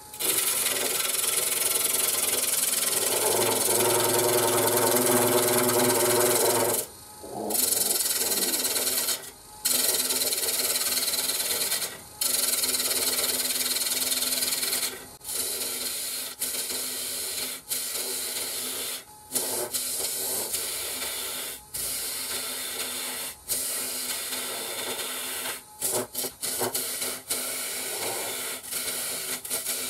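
Bowl gouge cutting the face of a spinning spalted maple and mahogany bowl blank on a wood lathe: a steady hissing shear of wood, broken by short pauses each time the tool comes off the cut. A few seconds in, a humming tone sounds for about four seconds, and the cut is quieter in the second half.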